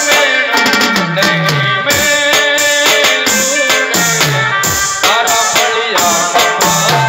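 Live garba music through a PA: keyboard and drums in a fast folk rhythm, with a deep drum hit that falls in pitch about once a second.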